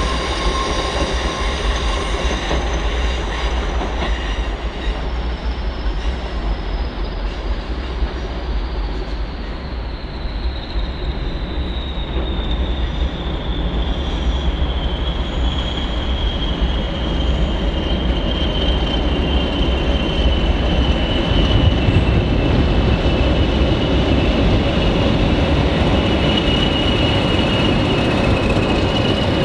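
A pair of Class 20 diesel locomotives approaches and passes close by. Their engines get louder over the last third, with rail and wheel noise underneath. A high whistle falls slowly in pitch throughout.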